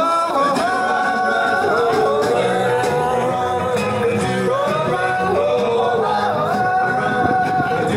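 Music with a singing voice: a singer sliding between notes and holding some of them long over an instrumental backing.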